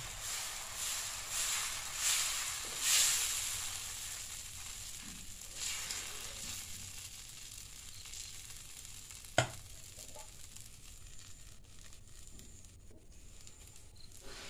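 Dosa batter sizzling on a hot cast-iron tawa as a ladle spreads it in circles. The sizzle swells with the strokes in the first three seconds, then fades to a low hiss, and there is a single sharp knock about nine seconds in.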